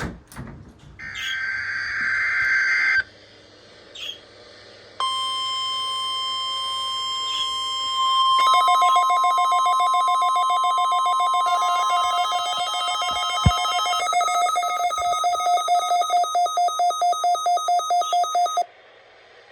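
NOAA Weather Radio weekly alarm test: a short burst of digital data tones, then the steady 1050 Hz warning alarm tone from about five seconds in. A few seconds later, weather alert receivers activated by the tone sound their own electronic alarm, a lower multi-tone beep. It pulses at about four beeps a second after the 1050 Hz tone stops, then cuts off suddenly.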